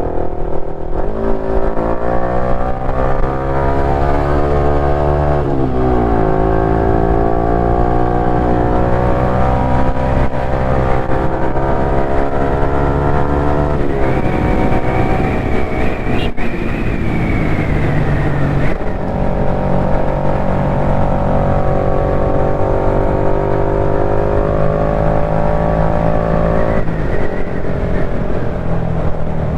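KTM 390 Duke's single-cylinder engine under way, its pitch climbing slowly as the bike accelerates and dropping sharply at each upshift, about four times.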